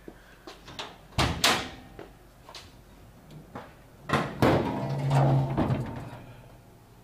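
The steel hood of a 1969 Dodge Super Bee clone being opened. There are a couple of sharp knocks, then a loud latch clunk and a pitched creak from the hinges for about a second and a half as the hood is lifted.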